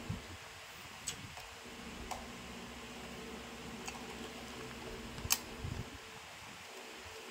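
A few short soft clicks and small handling sounds from a meal eaten out of paper packaging, the sharpest about five seconds in, over a steady low hum.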